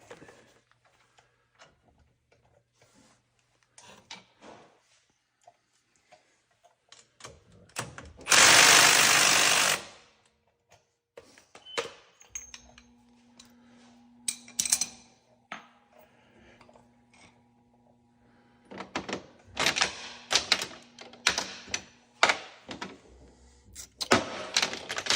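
Hand tools working on a truck's wheel hub: scattered metal clicks and knocks, with one loud noisy burst of about two seconds about eight seconds in and quick runs of clicks near the end.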